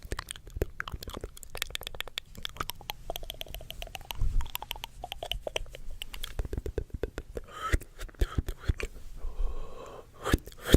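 Close-miked ASMR crackling and crunching: a dense run of quick crisp clicks, with a soft low thump about four seconds in.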